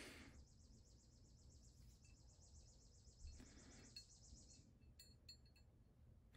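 Near silence, with a few faint, light metal clicks between about three and five and a half seconds in as a small spring and plunger are handled at the steel slide of a CZ 97B pistol. Under them is a faint high, rapidly pulsing hiss that stops a little past halfway.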